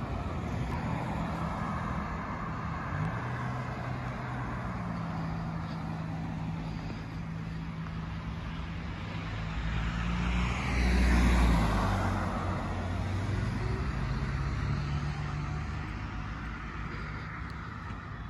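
Road traffic on a multi-lane boulevard: cars driving past with a steady engine hum. About halfway through, one car passes close by; its engine and tyre noise swells to the loudest point and then fades.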